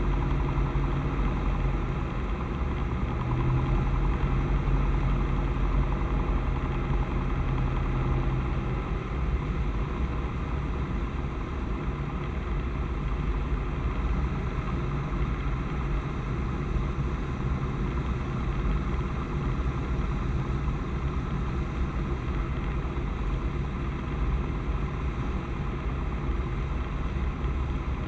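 Light single-engine airplane's piston engine and propeller running at reduced power on the landing approach, heard in the cabin with steady airflow noise. The engine tone eases about nine seconds in.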